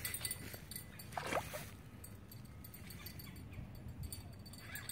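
Water sloshing and splashing at the shoreline as a hooked carp is played in close. About a second in there is a brief falling call.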